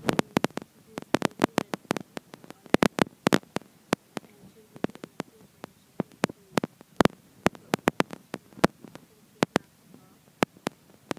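Handling noise close to the microphone: an irregular run of sharp clicks and taps, several a second, with a faint murmur beneath.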